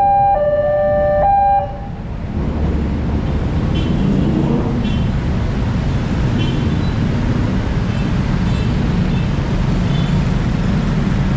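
Railway level-crossing warning siren sounding a two-tone high-low alternation, cutting off about a second and a half in as the crossing clears. Road traffic follows: engines of waiting buses and cars running and pulling away, with a few short faint toots.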